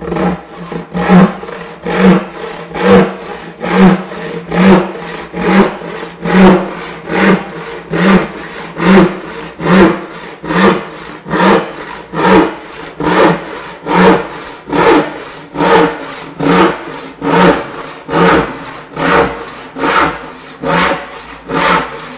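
Hand crosscut saw cutting across a radiata pine board in a steady rhythm of rasping strokes, a little more than one stroke a second, with a quieter sound between the strokes.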